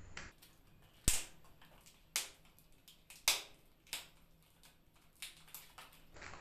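Clear plastic packaging being peeled open and handled: a few sharp plastic cracks and snaps about a second apart, with faint crinkling of the seal film between them.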